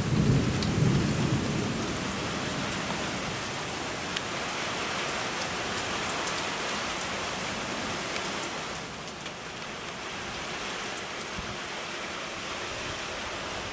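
Steady rain falling, with a low roll of thunder rumbling through the first couple of seconds and dying away.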